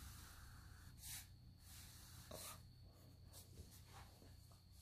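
Faint pencil scratching on sketchbook paper as short lines are drawn, a few separate strokes over a low steady background hum.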